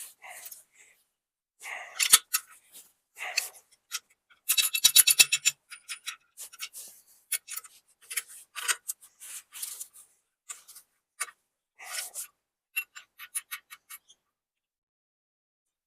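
Hand tools fastening nuts and bolts on a steel bracket: scattered metal clicks and scrapes, with a quick run of rapid clicking about five seconds in.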